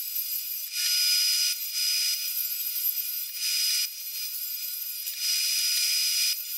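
Portable table saw running and ripping a Douglas fir board, a steady high whine with the cutting noise swelling and easing in uneven spells as the board is fed through.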